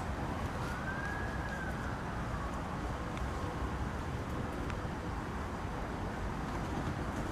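A distant emergency siren gives one slow wail, rising and then falling away over the first few seconds, above a steady rushing noise.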